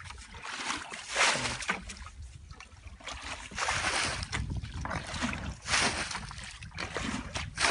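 Muddy water being scooped and tipped out with a plastic bucket, splashing every second or two as the shallow ditch is bailed.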